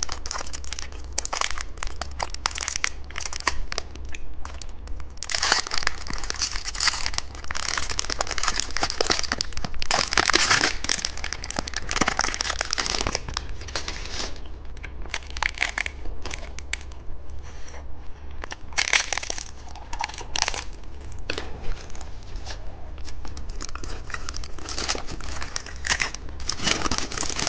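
Plastic candy wrappers crinkling and tearing as small sweet packets are unwrapped by hand, in irregular crackly bursts.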